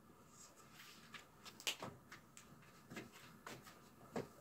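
Faint scratches and taps of a marker writing on a whiteboard: a string of short, separate strokes.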